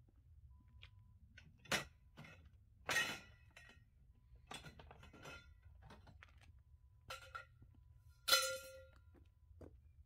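Metal camping gear being unloaded and set down: a series of sharp clanks and clatters, the loudest near the end with a brief metallic ring, as metal poles are dropped on the ground.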